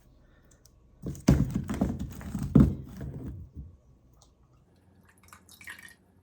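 Handling noise and knocks as a piece of aquarium rock is picked up and moved about, with two louder knocks about a second and a half apart; a short, fainter rustle near the end.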